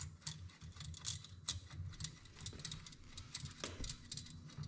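Irregular light metal clicks and clinks of a clutch bolt and washer being fitted by hand, with one duller knock about three and a half seconds in.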